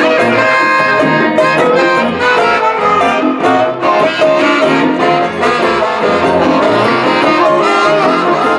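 Live rock band playing: a saxophone over electric guitars, bass, acoustic guitar and conga.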